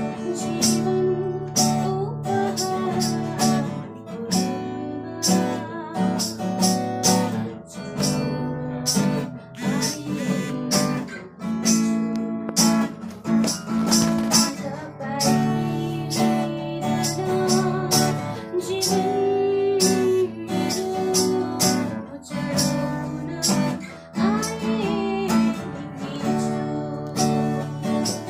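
Acoustic guitar strummed in a steady rhythm, accompanying a woman singing a Christmas carol.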